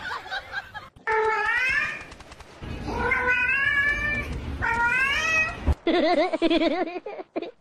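A grey cat meowing three times in long, drawn-out meows that rise and then fall, begging for a piece of shrimp held above it. Near the end a lower, wavering cry follows.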